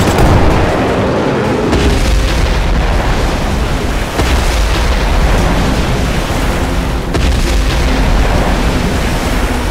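Loud dubbed action sound effects: deep booms and explosions over a continuous low rumble, as a laser blast hits a toy dinosaur and it crashes into the water with a splash.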